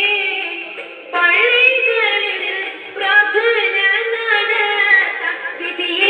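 A boy singing a Malayalam Eid song in sustained, melismatic phrases. One phrase fades out about a second in, a new one begins just after, and another begins about three seconds in.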